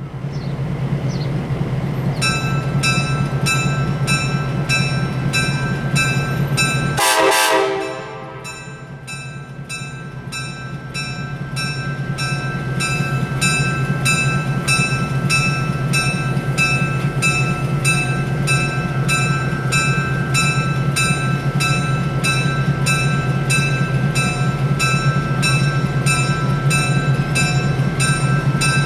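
Streamlined EMD F-unit diesel locomotive standing with its engine running in a steady low hum while its bell rings about twice a second, starting a couple of seconds in: the warning that the train is about to move off. A short horn blast sounds about seven seconds in.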